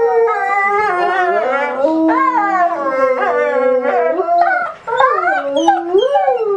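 Two grey wolves howling together, their overlapping voices wavering and gliding up and down in pitch, with a brief break just before five seconds in.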